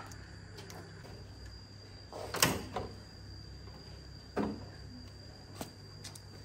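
Two sharp knocks about two seconds apart, the first louder with a short ringing tail, and a few light clicks around them, over a steady low hum.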